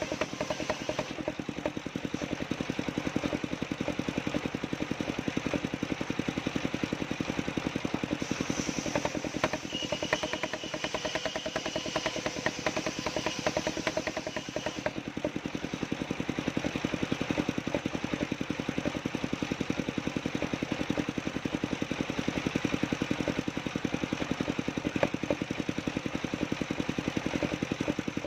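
Engine of a homemade wood-cutting sawmill running steadily, with a rapid, even pulse.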